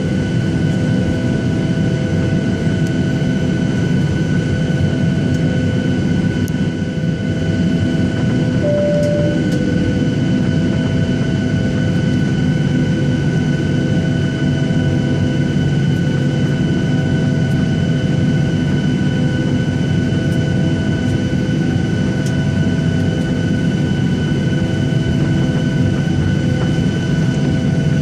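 Boeing 737 cabin noise before takeoff: a steady low rumble of the jet engines and air system running at low power, with high steady whines. There is one short beep about nine seconds in.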